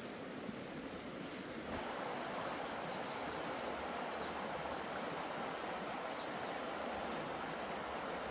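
A steady rushing noise with no distinct events, stepping up in level about two seconds in and then holding even.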